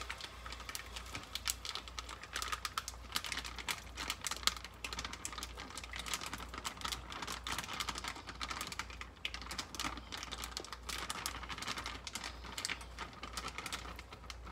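Hot butter crackling and spattering in a pot as crawfish tails are poured in from a plastic bag, a dense run of small pops.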